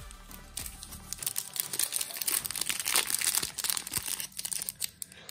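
Crinkling and tearing of a trading-card pack wrapper as a pack of basketball cards is torn open, a dense run of crackles starting about half a second in.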